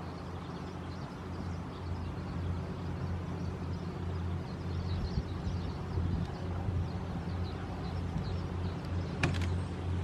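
Outdoor ambience: a steady low hum, with faint scattered chirps of small birds in the background and one sharp click about nine seconds in.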